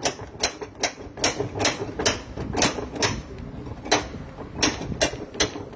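Ratchet wrench clicking in short strokes, about two to three clicks a second, as screws on a washing machine's drive mechanism are loosened.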